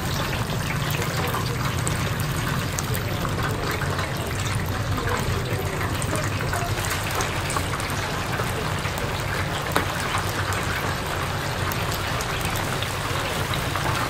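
Chicken deep-frying in a vat of hot oil: a steady, dense crackling sizzle of bubbling oil over a constant low hum.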